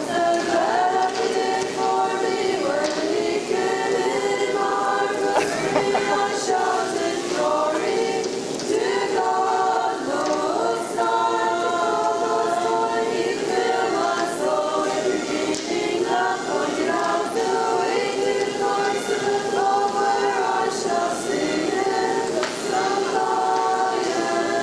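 A group of Hutterite women singing a hymn together in slow, long-held notes.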